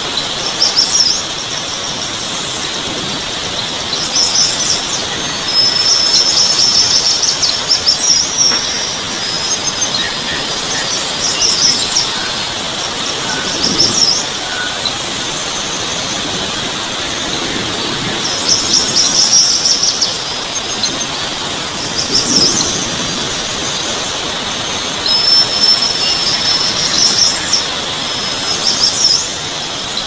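Birds chirping and trilling in high-pitched bursts every few seconds, over a steady high-pitched insect drone.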